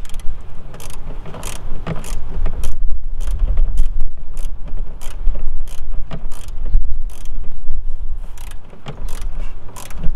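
Hand ratchet wrench clicking in short strokes, irregularly at about two clicks a second, as a long headlight mounting bolt is run in.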